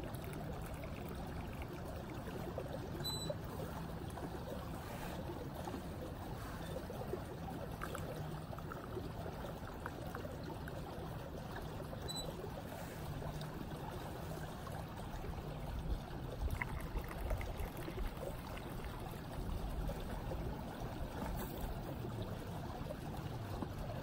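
Hot water trickling from a samovar's tap into a small tea glass, over the steady rush of a stream. A few light knocks come about two-thirds of the way through.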